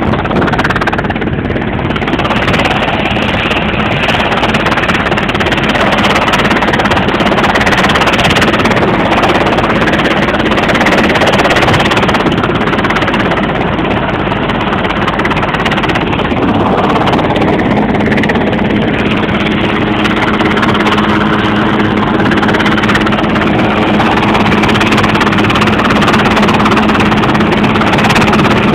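Search-and-rescue helicopter hovering overhead, its rotor and engine making a loud, steady noise; a steady hum joins in a little past halfway.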